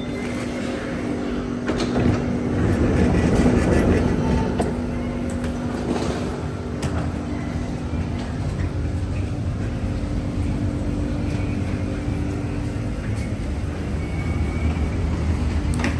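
A running vehicle: a steady low rumble with a steady humming tone that fades out about halfway through, growing loudest a few seconds in.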